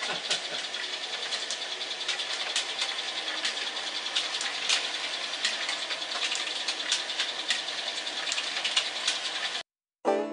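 Toy and model-train mechanisms running, a steady clattering rattle full of irregular sharp clicks. It cuts off suddenly near the end, and plucked banjo music begins.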